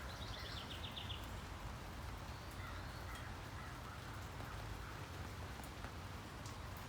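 Steady rain falling, with a bird calling in a rapid trill of repeated high notes in the first second and a fainter call about three seconds in. A few sharp drip clicks stand out from the rain.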